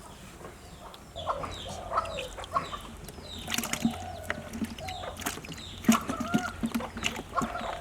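Chickens clucking, a run of short calls starting about a second in, with sharp clicks and knocks among them.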